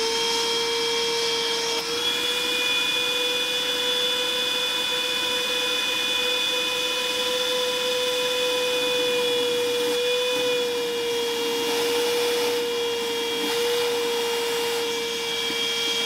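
Bauer 20V cordless 3.5-gallon wet/dry vacuum running with a steady whine while its hose nozzle sucks water out of a bucket; the pitch wavers slightly in the second half.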